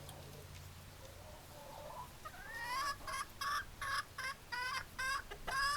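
A chicken calling: a rising note about two seconds in, then a run of short repeated squawking calls, about three a second, ending in a longer call near the end.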